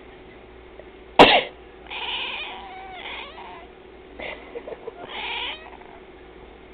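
A person coughs once, sharply, and a domestic cat answers with a few meows over the next few seconds, its usual response to a cough or sneeze.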